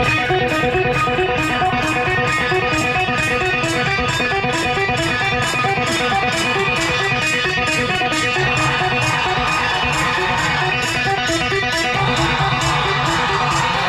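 Music led by guitar with a steady, fast beat, cutting in suddenly at full level.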